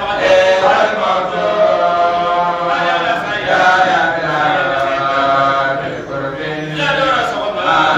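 Men's voices chanting a religious chant together, in long drawn-out notes that rise and fall, with a brief break about six seconds in.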